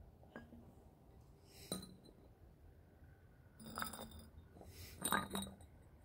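Glass bottles clinking with a short ring as they are set down on a hard slab: a few separate sharp clinks, the loudest about five seconds in.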